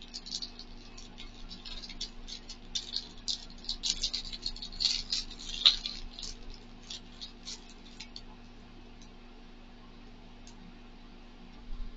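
Plastic packaging crinkling and crackling as a small item is unwrapped by hand, a dense run of sharp crackles that thins out after about eight seconds.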